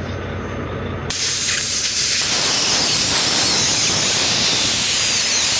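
Compressed air hissing out of a pressurised truck tire, starting suddenly about a second in and going on steadily. The tire is at about 90 to 100 psi, too high for the plug to stay in.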